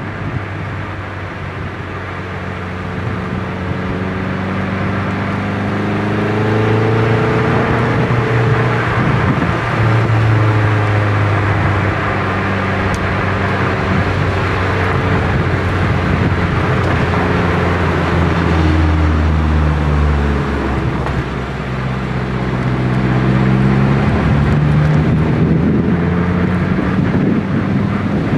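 Nissan 180SX's engine and exhaust running under way, its pitch climbing and falling several times, with a dip about two-thirds of the way through, heard from a microphone mounted on the outside of the car with wind rushing over it.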